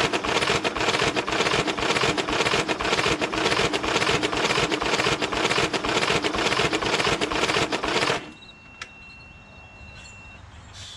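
Electric starter cranking a lawn tractor's flathead engine over and over for about eight seconds without it catching, then stopping suddenly. The engine turns over but will not start.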